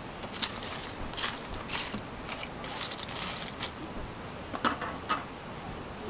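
Clam shells clicking and clinking against each other and a metal frying pan as steamed Manila clams are stirred with tongs: a run of irregular sharp clicks, thickest about halfway through.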